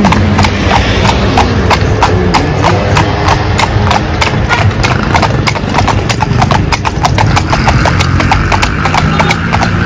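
Hooves of a pair of carriage horses clip-clopping on a paved road in a fast, even run of sharp clops, over a steady low rumble.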